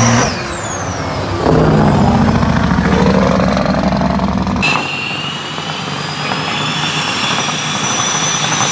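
Loud diesel semi-truck engines under hard throttle in drag runs, with high turbocharger whistles rising and falling in pitch. The sound changes abruptly a few times as the footage cuts between trucks.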